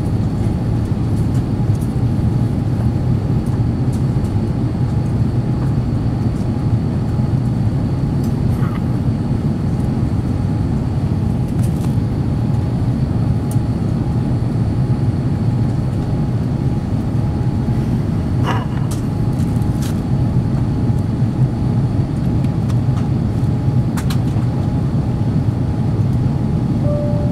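Steady cabin noise of an Airbus A350-900 in flight: a low rumble from its Rolls-Royce Trent XWB engines and the airflow, with a faint steady high tone running through it. A few faint clicks come from the cabin past the middle.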